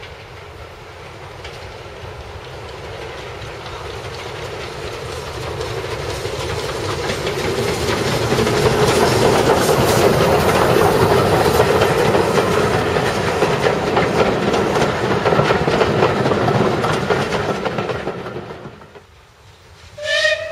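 A Bulleid Pacific steam locomotive and its train of coaches approach and pass, growing louder to a steady clatter of wheels over the rail joints, then fading away. Near the end a steam locomotive whistle sounds abruptly.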